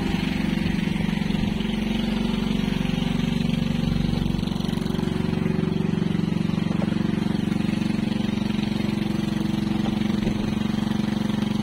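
Fishing boat's engine running steadily with an even, unchanging drone.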